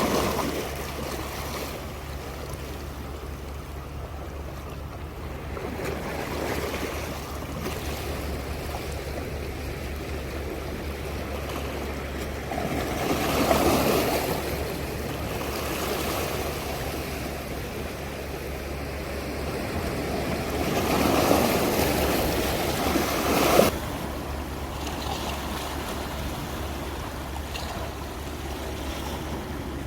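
Sea waves breaking on the shore, with two larger waves swelling up, about a third and about three quarters of the way through, the second cutting off sharply. A steady low rumble runs underneath.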